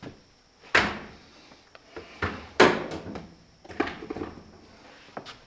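Heavy tool attachments and packaging being handled and set down: a handful of knocks and clunks, the loudest about a second in and again about two and a half seconds in.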